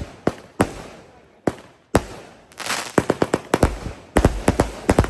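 Consumer fireworks going off: a series of sharp bangs, a few spaced out at first, then a rapid run of bangs, several a second, from about three seconds in.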